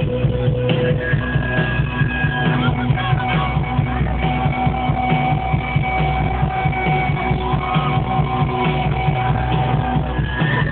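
Rock band playing live in a stadium: a steady, driving beat of drums and bass under held guitar notes. The sound is dull and muffled, with no treble.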